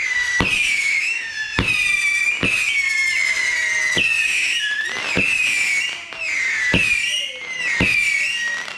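A multi-shot consumer firework cake firing a rapid string of whistling shots. Each launch is a sharp pop, and each is followed by a shrill whistle that dips slightly in pitch. The whistles overlap into a nearly unbroken screech over about a dozen pops.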